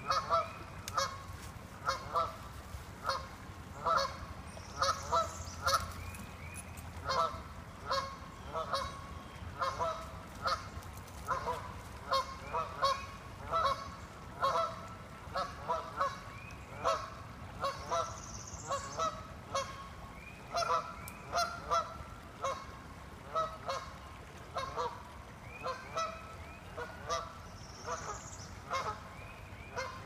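Geese honking over and over, short calls in quick irregular runs.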